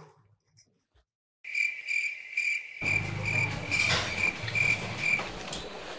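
Cricket chirping in an even, pulsing rhythm of about three chirps a second. It starts after a second and a half of near silence and stops shortly before the end, with low background noise underneath from about halfway through.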